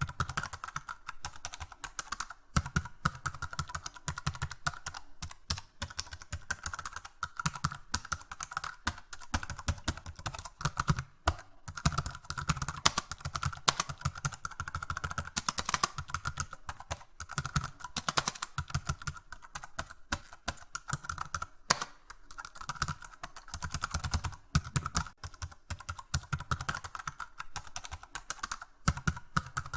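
Typing on a computer keyboard: a fast, continuous run of key clicks with only brief pauses.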